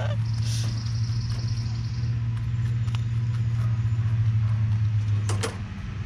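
A motor running steadily with a low drone that drops away about five seconds in, with a high trill for about two seconds near the start.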